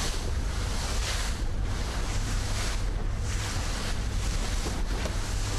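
Motorboat running at speed over choppy sea: a steady low engine rumble under rushing water and wind on the microphone, the rush swelling and easing every second or two.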